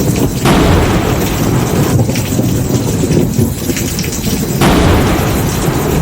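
Thunderstorm: heavy rain hissing over a low rumble of thunder. The rain sound changes abruptly about half a second in, at two seconds and again just before five seconds.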